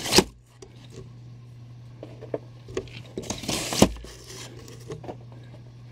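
Cardboard Funko Pop figure boxes being handled in a cardboard shipping carton with dividers: a knock right at the start, then a scraping rustle that ends in a sharp knock about three and a half seconds in, with a steady low hum underneath.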